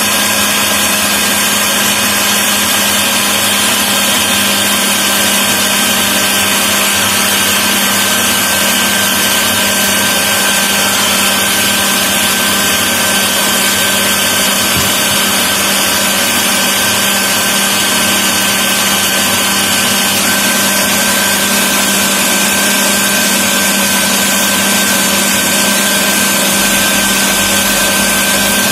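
Electric food processor motor running steadily and loudly, its blade churning a thick chicken meatball paste with shaved ice.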